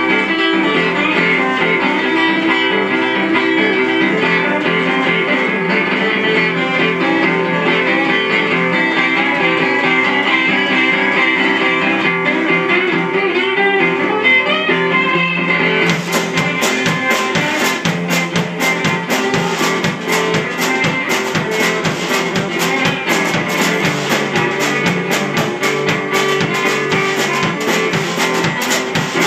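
Steel-string acoustic guitar fingerpicked in country-blues style, the thumb keeping a bass line under the melody. About halfway through, a drum kit and a washboard come in with a fast, steady beat.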